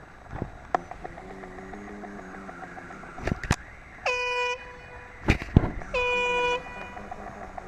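Two short air-horn blasts about a second and a half apart, each about half a second long with a quick rise in pitch as it starts, the kind of warning signal sounded before a blast on a construction site. Several sharp knocks and thumps fall around the horn blasts.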